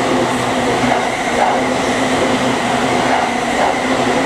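Orange-striped JR Chuo Line E233-series electric train running along the adjacent platform track: steady running noise of wheels on rail and motors, with a steady whine underneath.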